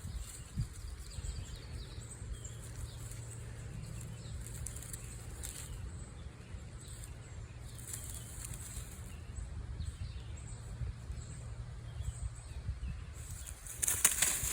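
A steady low rumble, with faint high bird chirps over it every so often, and a short burst of hiss near the end.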